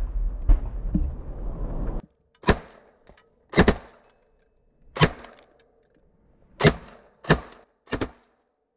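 Machine gun firing six loud separate shots, each with a short echo, roughly a second apart, after about two seconds of wind rumble and handling noise on the helmet microphone.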